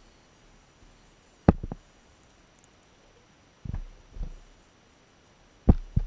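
Short dull knocks heard underwater through a waterproof camera housing, in three pairs about two seconds apart, the first and last pairs loudest.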